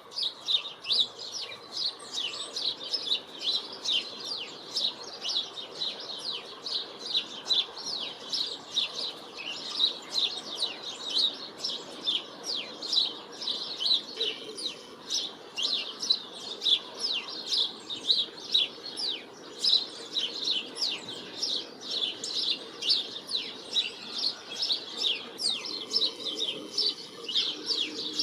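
Small birds chirping without a break: a dense run of short, high chirps, several a second.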